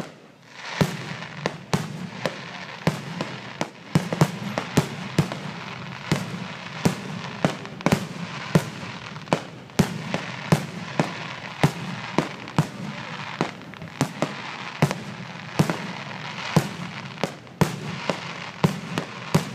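Fireworks finale barrage: sharp bangs about two a second, one after another, over a continuous crackle of bursting shells.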